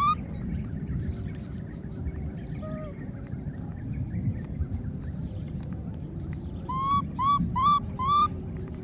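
Baby monkey giving short, pitched coo calls, each rising then falling. There is one at the start, a faint pair about three seconds in, and four in quick succession near the end, over a low background rumble.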